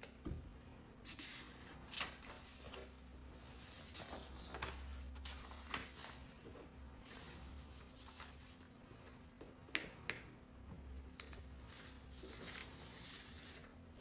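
Crayon and paper handling: scratchy rubs on the paper and scattered clicks of crayons against the crayon tray, over a faint steady low hum.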